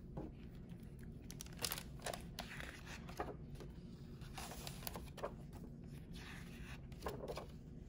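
Faint rustling and crinkling with scattered light clicks and taps, as of a picture book being handled and its pages turned.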